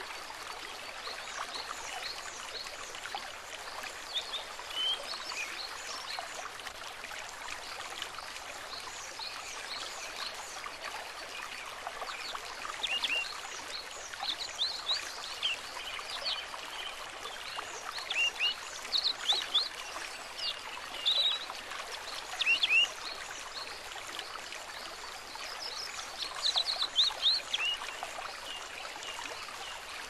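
Shallow stream babbling steadily, with small songbirds twittering over it in quick, high chirps. The chirps come sparsely at first and grow more frequent and louder from about halfway through.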